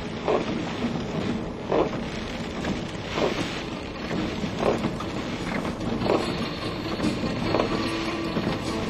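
Land Rover driving slowly along a rough dirt trail: steady vehicle rumble with wind buffeting the microphone, and a short thud about every second and a half.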